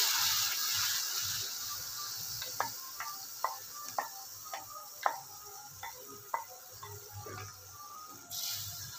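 Spinach puree sizzling in the hot oiled kadhai, the hiss fading over the first couple of seconds, then a run of light ticks about twice a second.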